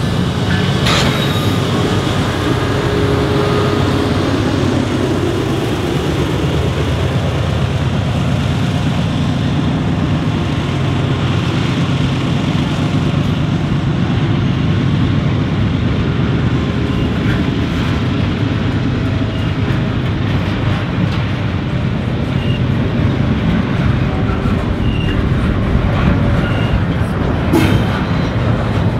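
A diesel train running by close up: a loud, steady rumble of engines and rolling wheels, with a few short clacks.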